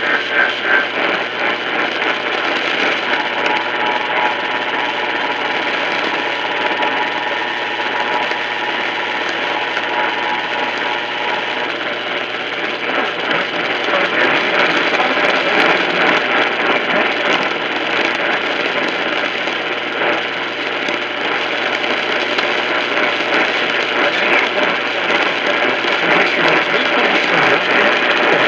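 Radio receiver static: a steady rough hiss with fine crackle, with a faint steady tone underneath for about the first twelve seconds.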